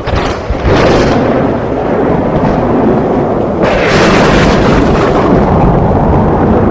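Loud thunder: a sharp crack at the start and another just under a second in, then a long rolling rumble, with a second crackling clap about three and a half seconds in.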